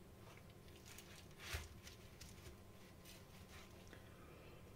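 Near silence with faint handling noise: a few soft ticks and one brief rustle about a second and a half in, as a wet-painted canvas is tilted by hand.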